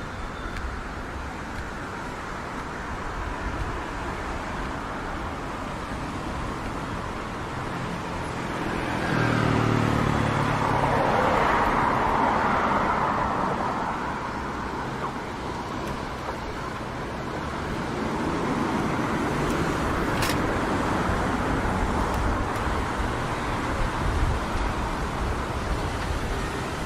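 Street traffic: a motor vehicle passes about ten seconds in, its engine sound rising and then fading. Later a broader rise in traffic noise follows, with a single sharp click about twenty seconds in.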